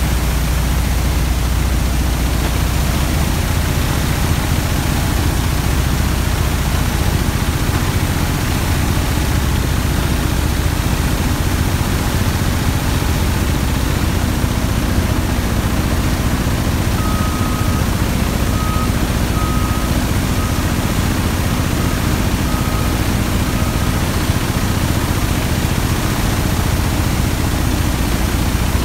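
Oilfield drilling-mud solids-control equipment running: a loud, steady machinery noise with a strong low hum, as drilling mud flows over the shale shaker screens. Past the middle comes a run of short high beeps that fade away.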